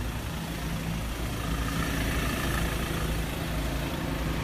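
A vehicle engine idling steadily, a continuous low rumble.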